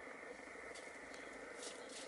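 Hens foraging in ground cover: a few soft rustles and scratches of feet and beaks in the leaves, over a faint steady background.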